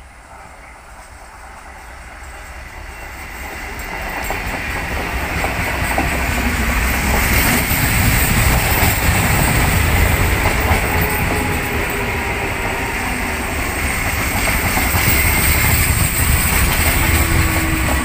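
ICF Medha EMU electric local train approaching and passing close by: its running and wheel-on-rail noise grows louder over the first five seconds or so, then stays loud and steady as the coaches go past.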